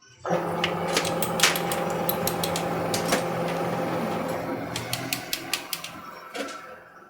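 A small motor starts abruptly and runs with a steady hum, with many sharp metallic clicks and taps over it, then dies away over the last couple of seconds.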